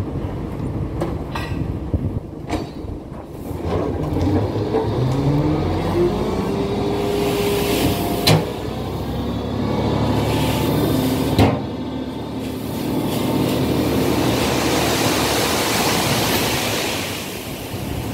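Diesel tipper lorry's engine revving to raise its tipping body, its pitch climbing about four seconds in, with two sharp knocks around the middle. Near the end comes a rushing hiss as the load of sand slides out of the raised bed.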